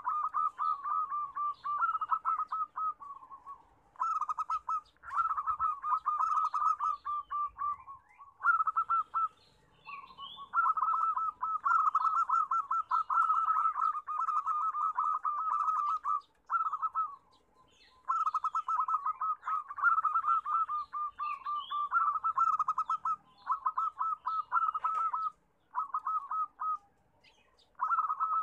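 Zebra dove (perkutut) cooing: long runs of rapid, rolling repeated notes that break off several times with short pauses, over faint high chirps of other birds.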